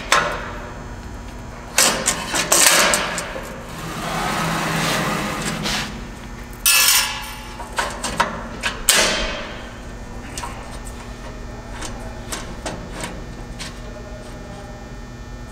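Metal parts being handled and fitted: a run of knocks, clicks and scraping, with a long rasping stretch and a louder clatter in the first half, then lighter ticks.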